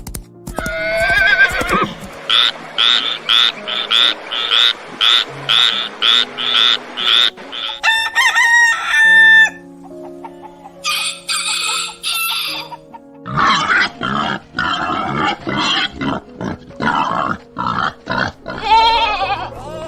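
Chickens clucking in a quick, even run of short calls, with a rooster crowing about eight seconds in, over background music.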